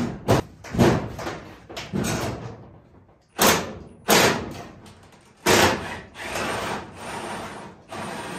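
Sheet-metal body panels of a dirt late model race car banging and clattering as they are pulled off the chassis: a run of sharp bangs, some a second or so apart, with a longer clatter near the end.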